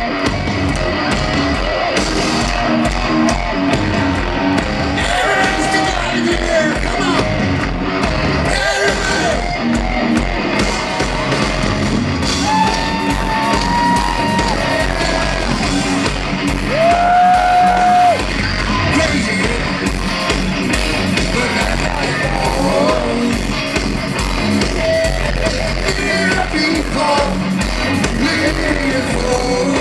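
Heavy metal band playing live at full volume, electric guitar and drums over a steady beat, with a singer's voice and a few long held notes about halfway through, heard from among the crowd.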